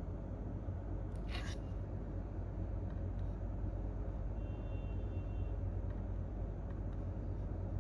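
Steady low rumble of office room tone, with a single keyboard click about a second and a half in and a few faint ticks later. A faint high tone sounds for about a second near the middle.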